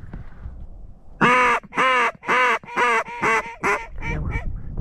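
A run of about nine loud, nasal mallard-hen-style quacks starting about a second in. The first quacks are drawn out, and the later ones come shorter, quicker and fainter, like a descending hen mallard call.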